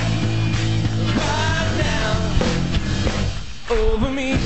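Rock music with a singing voice, briefly dropping away about three and a half seconds in.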